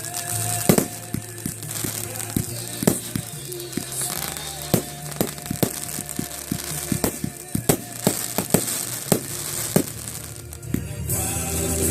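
Crackling fireworks: many sharp pops in quick, irregular succession, over music with a steady low line.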